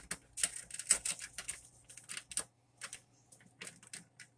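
Key and plastic cover of an enMotion paper towel dispenser being worked to unlatch it: an irregular run of small clicks and rattles, louder and closer together in the first half and sparser later.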